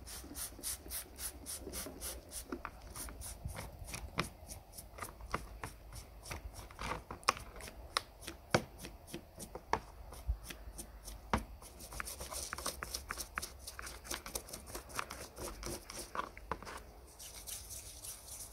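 Quick repeated rubbing strokes by hand on a part, about four a second at first and then more irregular, with a brief spell of steady hissy rubbing near the end.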